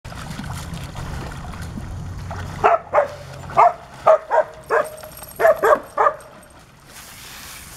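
A dog barking in a quick run of about nine short barks, starting a few seconds in and stopping about a second before the end.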